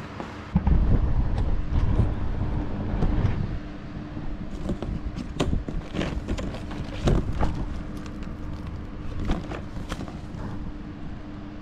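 Cardboard shipping box and its contents being handled and rummaged through. There is a heavy low rustling and bumping for the first few seconds, then a run of sharp crinkles, taps and scrapes as the pool filter pump, its corrugated plastic hose and the product box are moved and lifted.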